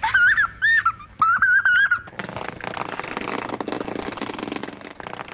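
A small child's high-pitched playful vocal noises: a few short rising-and-falling squeals over about two seconds. They are followed by a steady clattering, rattling noise for the rest of the time.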